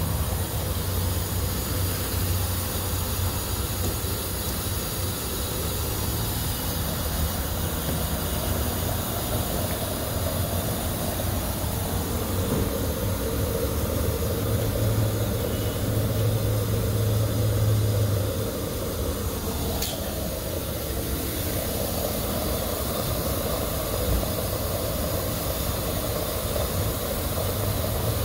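Gas pump at a filling station running, with a steady hiss over a low hum that grows a little stronger partway through. About two-thirds of the way in there is a click and a short falling whine.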